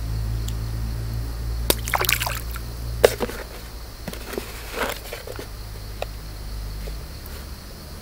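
Water splashing and sloshing close by: sharp splashes a little under two seconds in, a burst around two to three seconds, the loudest about three seconds in, and another near five seconds. A steady low hum runs underneath.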